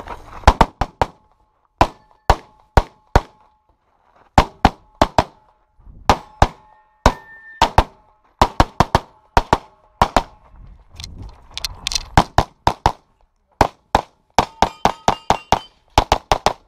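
A compensated Open-division race pistol fires rapid strings of shots, mostly quick doubles, with short pauses between bursts while the shooter moves between positions. Some hits are followed by the ringing of struck steel targets.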